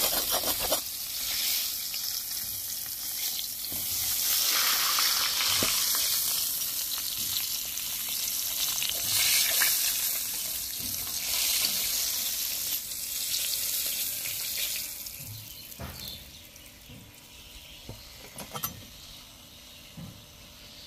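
A slab of pork ribs with belly skin sizzling in hot fat in a wide metal pan, a steady frying hiss. About three quarters of the way through the sizzle dies away, leaving a few light knocks.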